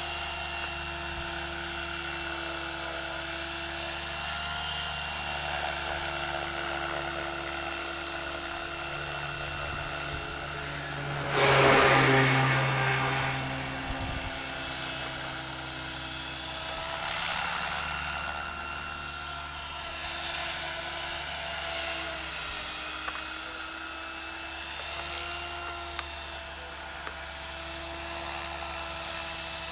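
Align T-Rex 500 electric RC helicopter in flight, its Scorpion brushless motor and rotors giving a steady high whine. About twelve seconds in, a brief louder rush of noise.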